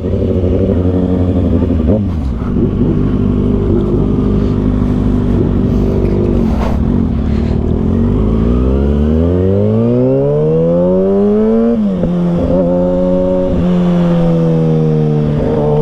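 Kawasaki ZX-6R inline-four sport bike engine under way, loud: the engine runs steadily, then the revs climb for about three seconds and drop sharply at an upshift near the twelve-second mark, settling to a steady note at lower revs.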